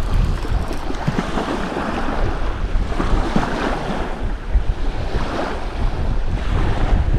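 Wind buffeting the microphone, with the wash of the sea behind it.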